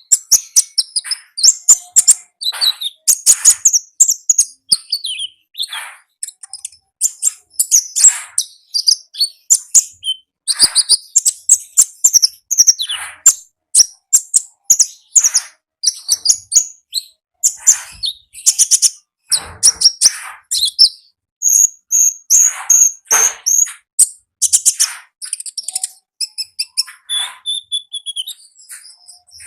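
A konin songbird singing loud and fast: a continuous stream of high, sharp chirps, trills and rattling notes, with hardly a pause.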